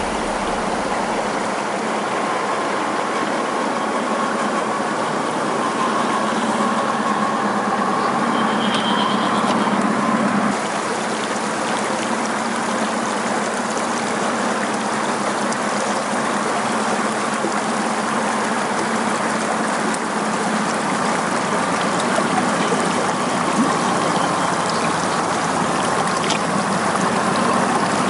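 Stream water running over rocks, with the faint whine of a 1/10-scale RC crawler's 55-turn electric motor and gears as it drives through the water.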